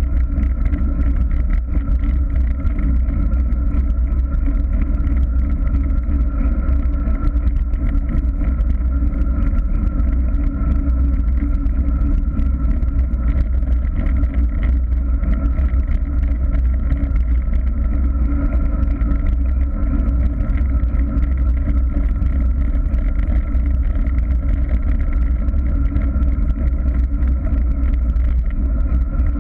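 Steady wind rush buffeting the microphone of a camera moving at speed, over the rumble of wheels rolling on a rough paved road.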